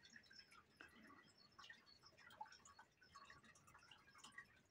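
Near silence, with faint, scattered small ticks and taps.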